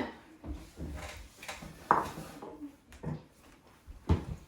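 Scattered light knocks and handling noises, with a few soft low thumps and one sharper tap about two seconds in.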